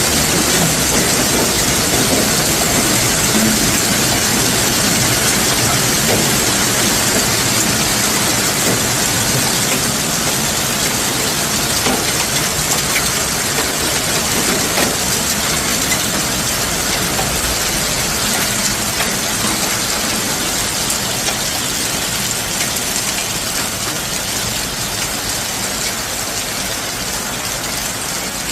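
Hail and rain pelting down: a dense, steady patter of countless small hits that eases gradually over the stretch.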